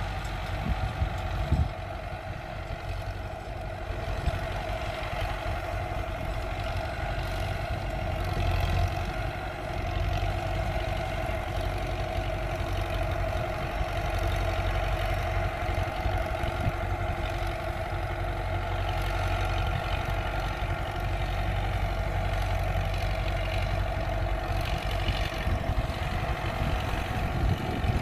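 Diesel engine of a single-drive-axle Belarus MTZ tractor running steadily as it hauls a heavily loaded cassava trailer, a steady drone that gets slightly louder about eight seconds in.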